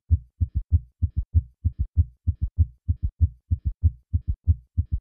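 Heart sounds recorded with a stethoscope at the cardiac apex: a fast, regular run of short low thuds, several a second, with no gaps.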